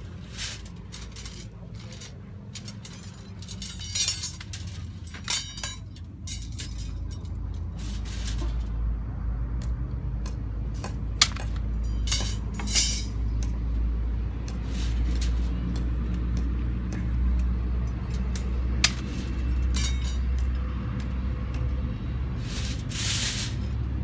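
Steel rebar and wire clinking and clanking now and then as they are handled, over a low steady rumble.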